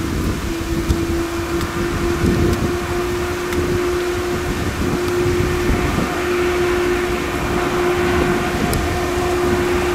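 Electric locomotive running slowly with a freight train of car-transporter wagons: a steady humming tone from its traction equipment over a low rumble.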